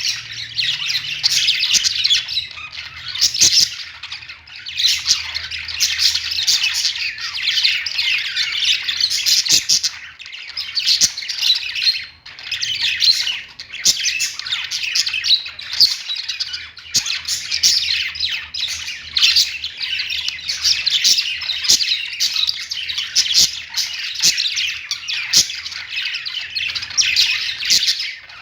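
Many birds chirping and squawking at once in a dense, continuous chatter of short, quick calls.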